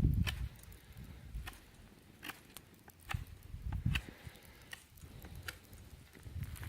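Knife whittling a wooden stick to a point: irregular sharp clicks and scrapes, with a few dull low knocks.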